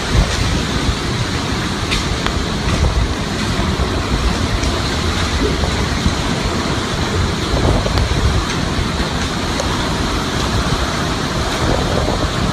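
Hurricane-force wind blowing steadily, with a heavy low rumble of wind buffeting the microphone.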